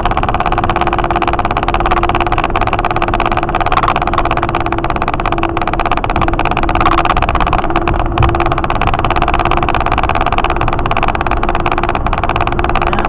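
Steady road and engine noise of a car cruising at highway speed, heard inside the cabin, with a steady hum running underneath.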